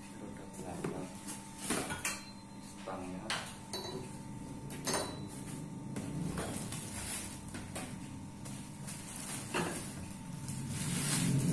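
Tricycle parts being handled and lifted out of a cardboard box: scattered knocks and clinks of plastic and metal pieces, with crinkling plastic wrapping near the end.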